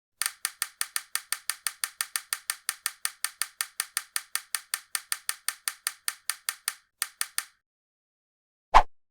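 A rapid, even series of sharp mechanical clicks, about four a second, that stops a little past seven seconds in; near the end come two louder, deeper knocks about half a second apart.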